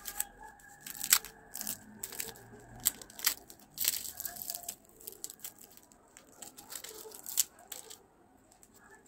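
Crisp, flaky oven-baked yufka börek rolls being broken apart by hand. The pastry layers crackle and snap in a quick series of sharp crunches that stop about eight seconds in.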